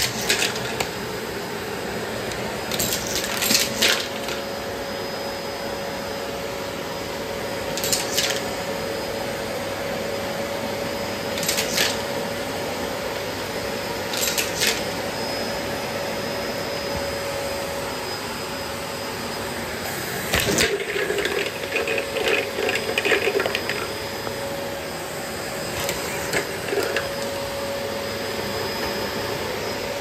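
Bosch bagless canister vacuum cleaner running steadily, with short sharp clatters every few seconds as small hard objects are sucked up and rattle through the tube and hose. A burst of several quick rattles comes about two-thirds of the way in.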